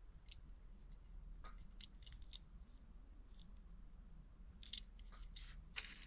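Faint scattered clicks and crinkles of plastic blister packaging as a carded diecast car is handled, with a few sharper clicks near the end.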